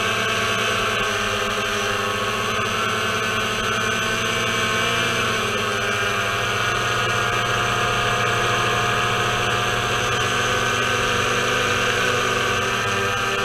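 Quadcopter drone's electric motors and propellers whining steadily in flight, heard from the drone's own onboard camera. Several steady tones sound together, shifting slightly in pitch around the middle as the drone turns.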